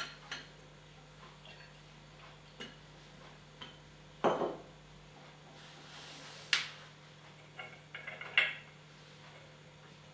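Porcelain coffee set clinking and knocking on a tile floor: a coffee pot set down and a cup rattling on its saucer. Separate sharp knocks with short ringing, with a quick cluster of small clinks near the end.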